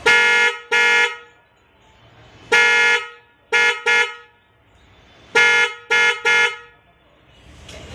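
Mitsuba electric car horn honked in short blasts, two, then three, then three, each one steady note.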